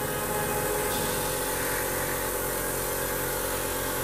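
Airbrush spraying a fine mist of thinned acrylic paint: a steady hiss of air and paint, with the steady hum of the airbrush compressor underneath.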